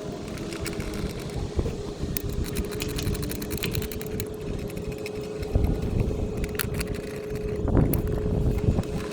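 Steady mechanical hum over a low rumble, with scattered light metallic clicks as valve-cover bolts are threaded in by hand.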